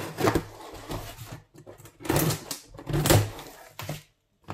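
Scissors cutting through packing tape and plastic wrap on a cardboard box, then the cardboard flaps being pulled open, with loud scraping and tearing noises about two and three seconds in.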